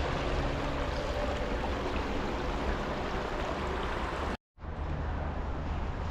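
Rushing water, a steady even hiss of a creek spilling over rocks. About four seconds in it cuts to a steadier low rumble.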